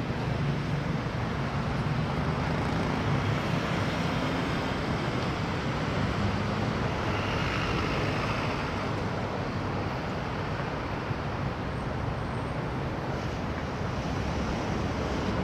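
Steady city road traffic: cars and buses moving through a busy intersection, with the low rumble of an elevated expressway. A faint higher whine swells and fades about halfway through.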